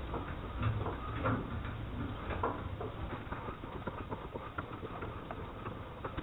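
Irregular light clicks and knocks of hand tools working threads in metal, as a tap is run into bolt holes and a die over bolts to clean rusted threads.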